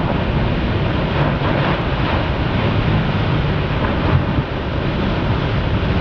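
Wind rushing over the microphone and heavy surf breaking: a loud, steady roar of noise.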